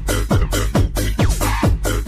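Electronic dance music with a fast, steady kick-drum beat, about three beats a second.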